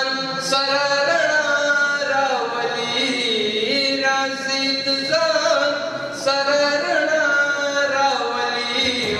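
A young man's voice chanting a Pashto tarana, unaccompanied. He holds long melodic notes that bend and glide, with short breaks between phrases.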